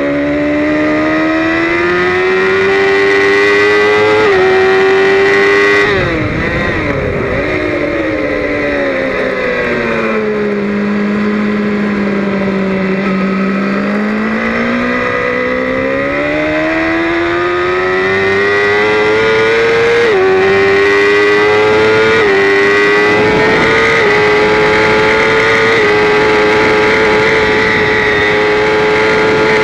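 BMW S1000RR inline-four engine at full throttle, heard from the rider's seat with wind rush. Revs climb through an upshift about four seconds in, then fall sharply about six seconds in as the bike brakes and shifts down. The engine pulls slowly up from low revs and climbs again through two upshifts about twenty and twenty-two seconds in, holding high revs at top speed.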